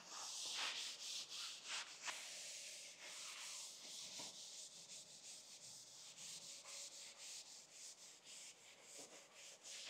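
Cloth wiping and rubbing over the saw's table top with acetone, in repeated quick strokes, faint.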